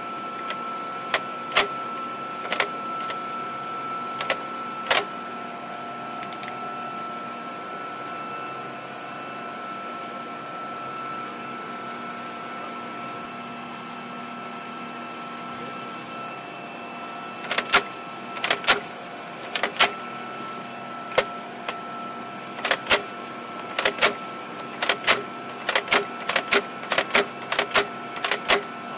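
Sharp metallic clacks as a helicopter's window-mounted machine gun is worked by hand: a few in the first five seconds, then a quick run of them over the last dozen seconds. Under them runs a steady machinery hum with a thin high whine.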